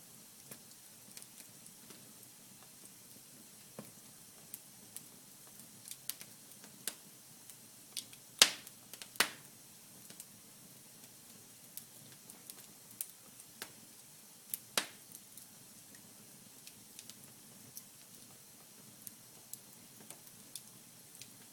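Wood fire crackling in a fireplace: irregular sharp pops and snaps over a faint steady hiss. The loudest pops come about eight and nine seconds in, with another near fifteen seconds.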